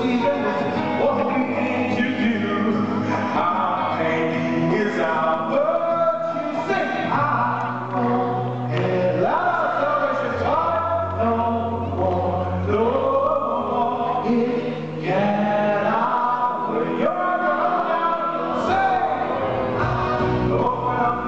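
A man singing a song over musical accompaniment, amplified through a headset microphone and a large hall's PA system.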